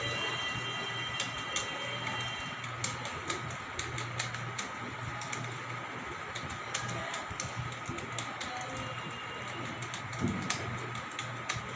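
Computer keyboard being typed on: irregular key clicks, several a second at times, over a steady background hum and hiss.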